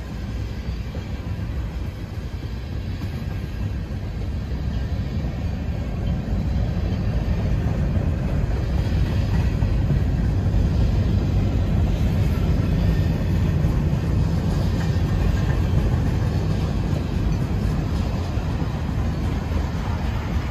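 Freight train of tank cars rolling past at close range: a steady low rumble of steel wheels on rail that grows louder about six seconds in.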